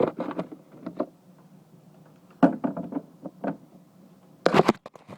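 Handling noise: three bursts of short clicks and knocks from hard objects being moved, one at the start, one in the middle and a shorter loud one near the end, over a faint steady hum.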